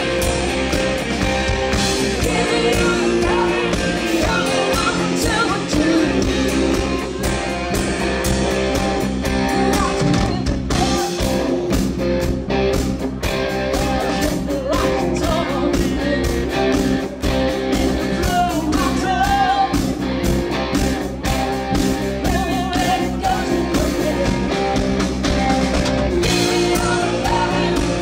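Live rock band playing a song: a woman sings lead over electric guitar, bass guitar and drums.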